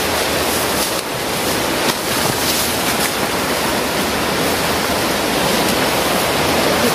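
Steady rush of a fast-flowing, rocky river.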